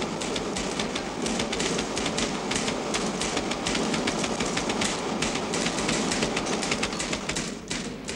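Several typewriters clattering at once: dense, rapid keystrokes with no pause, dipping briefly near the end.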